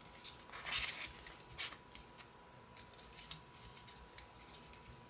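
Faint, scattered plastic clicks and rustles from a twisty cube puzzle being handled and turned.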